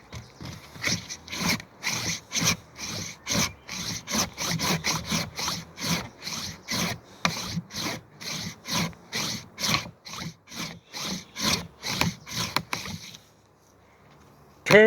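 Hand saw cutting through wood in quick, even back-and-forth strokes, about two to three a second, stopping a little before the end. Near the end comes a man's long drawn-out shout.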